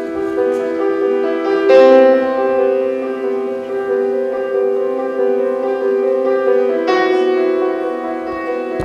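Instrumental music with long held notes; a new chord strikes about two seconds in and another near the end.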